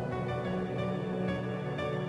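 Background music with sustained low tones and higher notes that change a few times.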